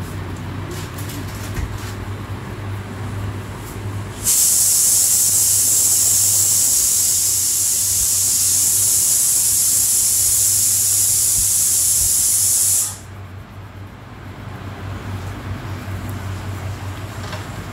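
A loud, steady high-pitched hiss starts suddenly about four seconds in, lasts about eight and a half seconds, and cuts off sharply. A low steady hum runs underneath throughout.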